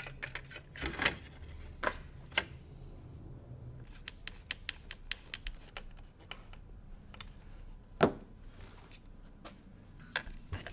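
Hands working on a car's steering wheel and its parts: a run of sharp clicks and taps, with one louder knock about eight seconds in. A low hum underneath stops about four seconds in.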